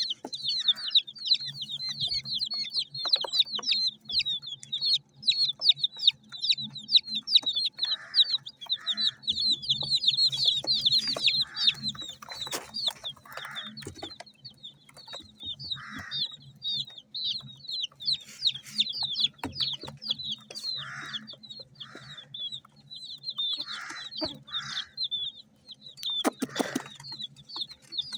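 A flock of baby chicks peeping continuously: many rapid, high chirps overlapping, with short scratchy sounds every second or two.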